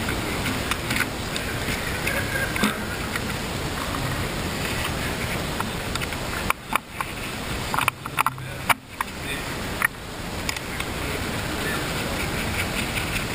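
Steady wind noise on the microphone, with a few clicks and knocks from gloved hands handling a small chainsaw. The handling is busiest about halfway through.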